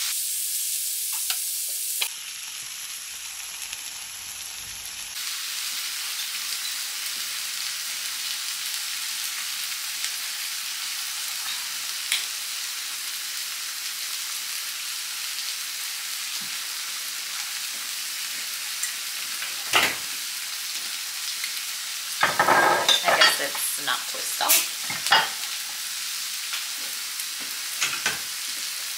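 Large shrimp frying in oil in a pan, a steady sizzle. In the second half there are a few sharp clicks and knocks, clustered between about 22 and 25 seconds.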